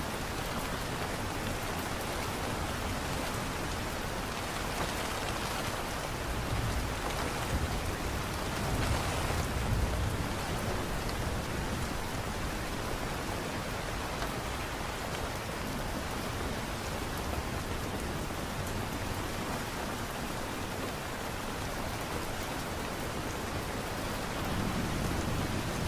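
Steady light rain falling, an even hiss, with a low rumble swelling up about seven to ten seconds in and again near the end.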